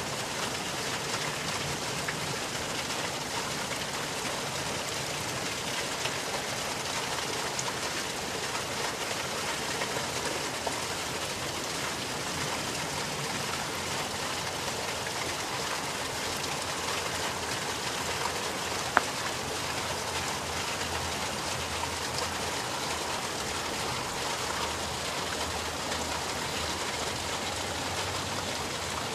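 Water running and trickling steadily, with one sharp click about nineteen seconds in.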